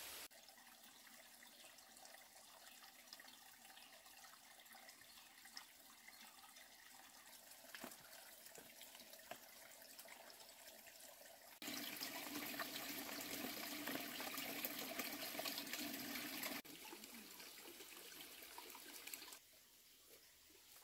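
Shallow stream water trickling and lapping, with a few faint clicks and light splashes. About twelve seconds in, the water sound becomes abruptly louder and fuller for about five seconds, then drops back in steps.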